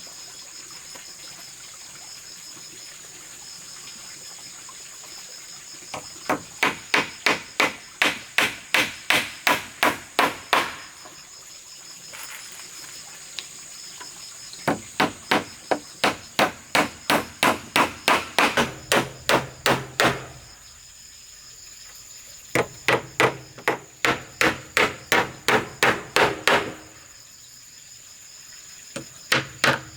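Hammering: quick, even blows, about three a second, in four runs of several seconds each with pauses between. A steady, high insect drone runs underneath.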